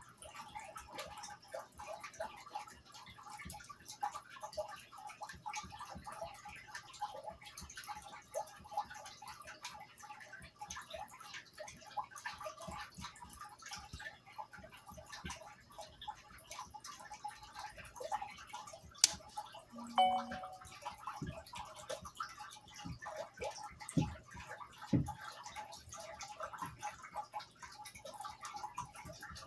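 Faint crackly room noise with scattered small ticks. About two-thirds of the way through there is a sharp click, a brief tone, then two soft knocks, as the charging cable is unplugged and plugged into another port of the charger.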